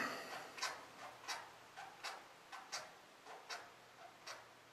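Faint, slightly uneven ticking: a stronger tick about every three quarters of a second with softer ticks in between.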